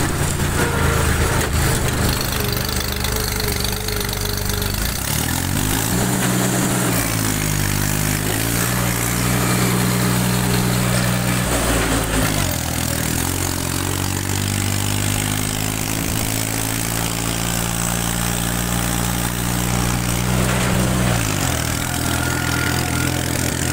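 Old tractor's diesel engine running while the tractor is driven. Its pitch rises about six seconds in, dips and comes back up around the middle, and falls again near the end.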